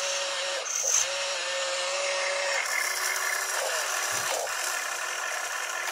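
Electric motors of a radio-controlled model excavator whining as it lifts its boom and swings toward the dump truck. The pitch steps higher about two and a half seconds in, with a short glide near four seconds.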